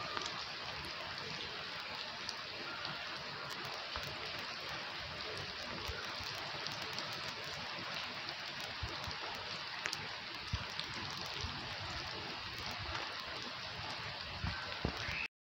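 Heavy rain falling steadily on a wet concrete courtyard and its puddles, an even patter with scattered louder drop ticks. It cuts off suddenly near the end.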